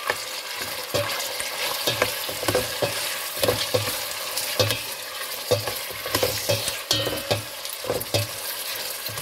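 Beef frying with garlic and onion in a stainless steel pot, sizzling steadily, while a spoon stirs it, scraping and knocking against the pot about twice a second.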